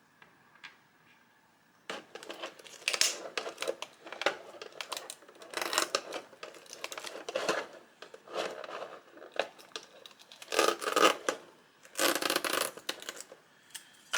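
Thin plastic packaging crinkling and tearing in irregular bursts, starting about two seconds in, as small figure parts are handled and unwrapped from a plastic bag.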